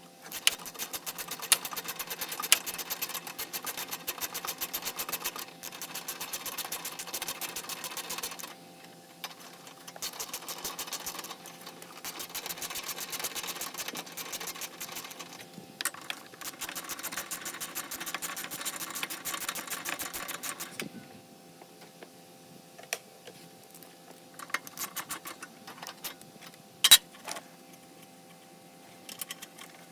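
Hand ratchet wrench clicking in three long, fast runs as fasteners are turned, then a few scattered metallic clicks and clinks of tools, one sharp and loud near the end.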